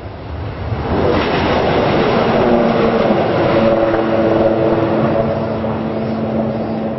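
L0 series maglev train passing at high speed: a loud rushing roar that swells about a second in, with a falling whine as it goes by, then eases off slowly.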